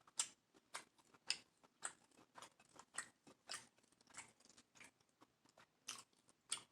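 Close-miked chewing of a seafood boil: a run of short wet mouth clicks and smacks, irregular, about one to two a second.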